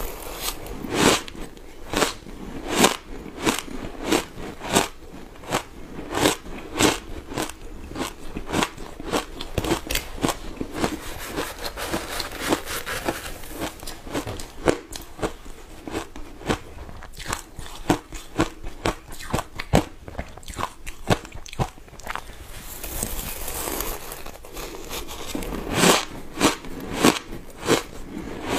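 Matcha shaved ice being bitten and chewed close to the microphone: a long run of sharp, crisp crunches, often about two a second.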